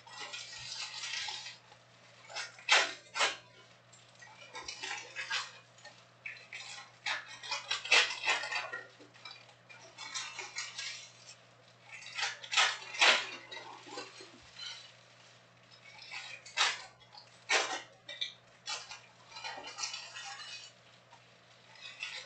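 Foil trading-card pack wrappers being handled and torn open, crinkling and crackling in irregular bursts, with sharp clicks of cards being slid and tapped together.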